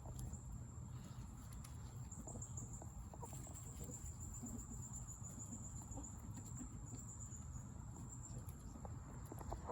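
Chickens foraging and pecking at apples, with scattered soft taps and faint clucks, under a steady, high-pitched insect trill.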